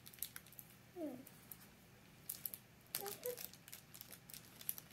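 Faint, intermittent crinkling of a small clear plastic bag as it is picked open by hand to get a squishy toy out. About a second in there is a short falling voice-like sound, and a few brief pitched sounds come around three seconds in.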